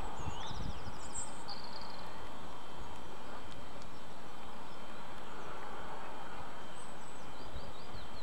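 Outdoor field ambience: a steady background hiss with low wind rumble on the microphone, and small birds chirping. There is a fast high trill about a second in and a few short chirps near the end.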